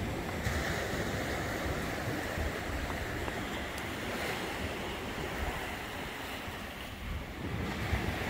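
Small waves breaking and washing onto a sandy beach in a steady hiss of surf, with wind buffeting the microphone.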